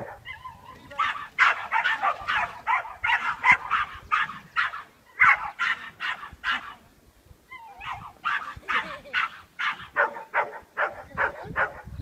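Dog barking in quick runs of several sharp barks a second, with a break of about a second just past the halfway point.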